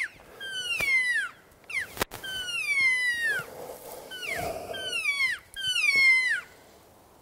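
Elk cow mews: a string of about seven high, falling, nasal calls in quick succession, some short and some drawn out, with a sharp click about two seconds in.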